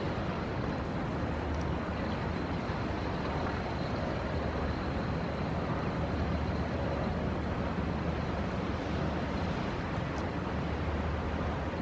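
Steady outdoor background noise: a continuous rushing hiss with a low hum beneath it, unchanging throughout.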